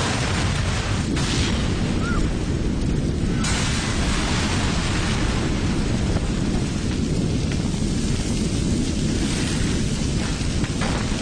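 Car explosion: a sudden loud blast at the start, then a steady deep rumble of the burning car. More hiss joins in about three and a half seconds in.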